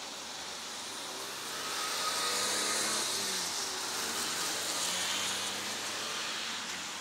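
Diesel train approaching, its engine running with a wavering note that grows louder about two seconds in, over a steady hiss.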